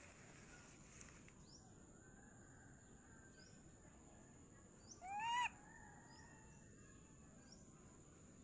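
A baby monkey gives a single short coo about five seconds in, about half a second long, rising then falling in pitch. It stands clearly above a steady high hiss and a few faint, short chirps.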